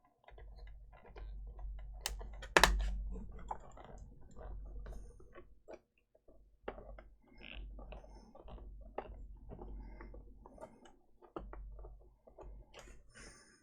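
Small irregular clicks and taps of a Phillips screwdriver and hands working at a screw in a laptop's plastic case, with one sharp knock about two and a half seconds in.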